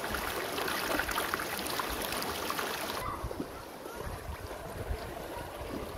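Shallow river water rushing and splashing over rocks. About halfway through the hiss drops and the flow sounds softer.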